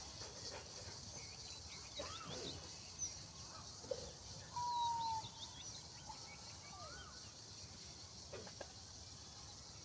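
Wild birds calling: scattered short chirps and gliding whistles, the loudest a single clear whistle about five seconds in. Under them runs a steady high hiss of insects.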